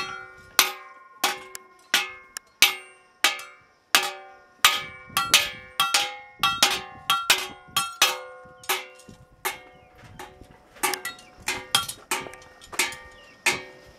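Blacksmith's hammer striking hot metal on an anvil: a steady run of ringing metallic blows, about two a second, with quick lighter taps between some of the heavy strikes.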